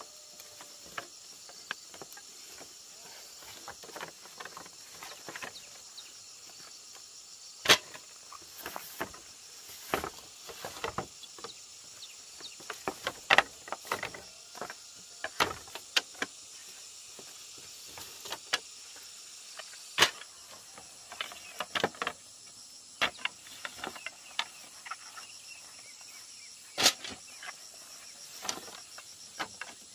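Irregular knocks and clicks, a few of them sharp and loud, over a steady high insect drone.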